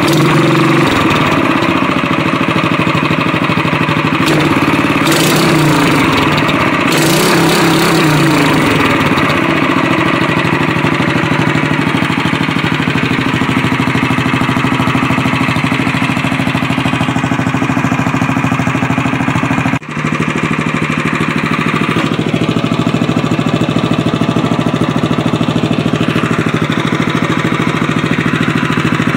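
Honda GX200 single-cylinder four-stroke engine running through a looped header and a Supertrapp-style disc muffler with resonator. Its speed shifts with the throttle over the first several seconds, then holds steady, with a brief break about twenty seconds in.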